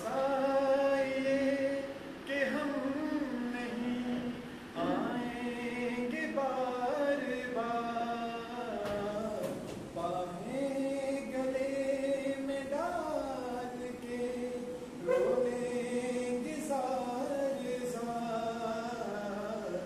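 A man singing solo and unaccompanied, in long held notes with pitch slides between phrases.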